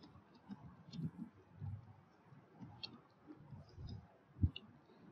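Faint, irregular keystrokes on a computer keyboard while a line of text is typed: soft thuds with an occasional sharper click.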